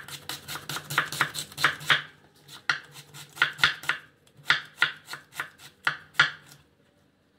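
Knife slicing an onion on a cutting board: quick runs of sharp chops against the board with short pauses between them, stopping about a second before the end.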